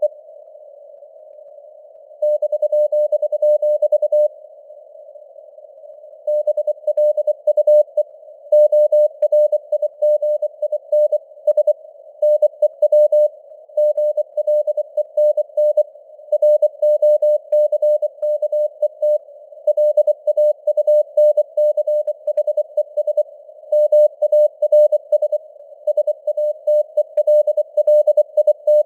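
Morse code (CW) at 24 words per minute: a single mid-pitched beep keyed rapidly on and off over a narrow band of simulated radio static hiss. It pauses twice for about two seconds early in the sequence, leaving only the hiss.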